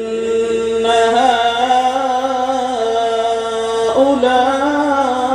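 A man reciting the Quran in the melodic, drawn-out tilawat style, stretching the word "innaha" over long held notes with ornamented turns in pitch. The voice breaks briefly about four seconds in, then carries on.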